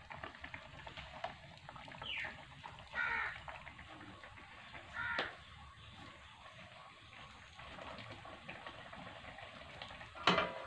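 A bird calls three short times early and midway through, over a faint steady background. Near the end a steel plate is set down as a lid on the iron wok with one sharp metallic clank, the loudest sound.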